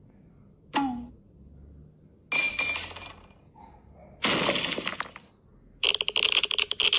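Metal pipe clang sound effects: three separate crashing clangs, each fading out within about half a second, the first with a falling pitch. From about six seconds a loud, harsh, continuous crackling noise with steady high tones takes over.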